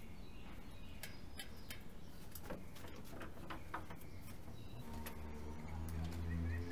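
Small sharp clicks and ticks of a bicycle V-brake arm and its parts being handled and fitted by hand. A low steady drone comes in about five seconds in and grows louder near the end.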